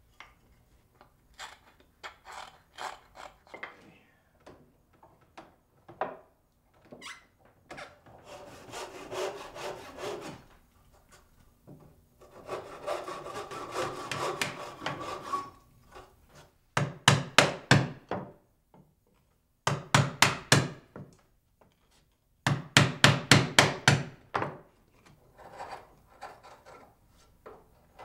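Light scraping strokes of a wooden marking gauge on the board, then a Lie-Nielsen dovetail saw cutting into the wood in two spells of steady back-and-forth strokes. After that come three quick runs of sharp taps, a mallet driving a chisel to chop out the waste between the dovetails.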